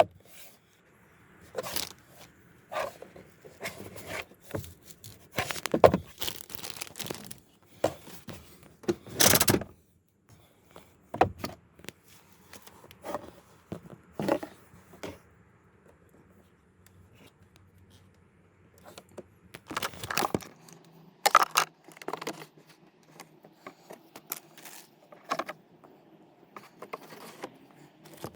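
Irregular plastic clicks, scrapes and rustles of hands working a car's cabin air filter cover and filter, with louder knocks about six, nine and twenty seconds in.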